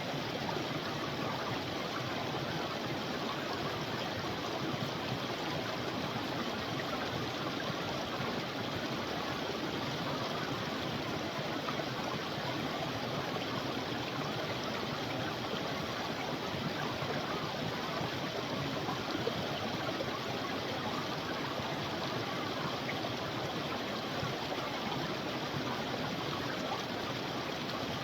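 A creek's running water, a steady, even rush and babble with no breaks or changes.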